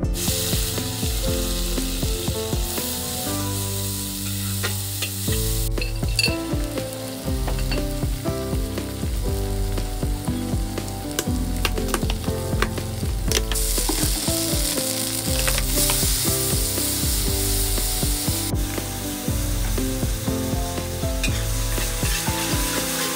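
Oil and chilies sizzling and frying in a large metal wok, with a metal spatula stirring and scraping against the pan and sharp clicks here and there.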